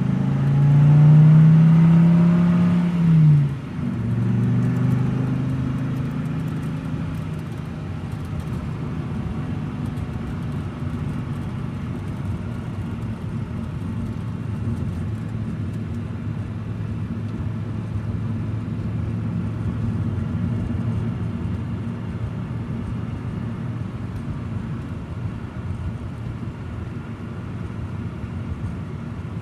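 Car engine revving up, loudest in the first three seconds, then settling into a steady low drone that eases off slightly as the car drives away.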